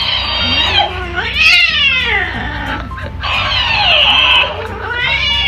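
A cat yowling angrily at a talking hamster mimic toy, which plays the cries back in a sped-up, squeaky high pitch. The result is a run of drawn-out rising-and-falling wails, some low and some shrill.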